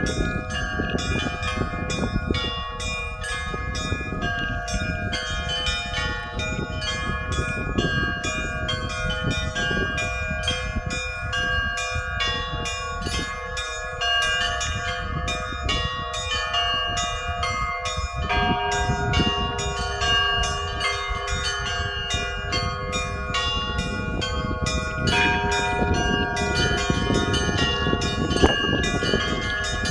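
Russian church bells being rung in a continuous peal: several bells of different pitches struck in quick rhythmic succession, several strikes a second, their tones ringing on and overlapping. A deeper bell joins a little over halfway through.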